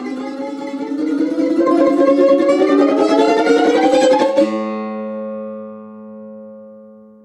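Tar (Persian long-necked lute) played with rapid tremolo picking, its pitch gliding upward and growing louder. About four seconds in the picking stops abruptly and a B-flat note rings on, slowly dying away.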